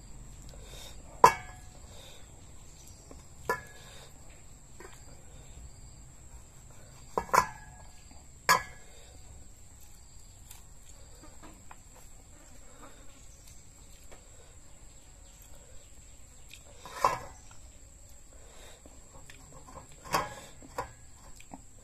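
Mouth sounds from eating raw beef: sharp wet smacks and clicks, a few seconds apart at uneven intervals, with two close together around seven seconds in. A faint, steady, high-pitched tone runs underneath.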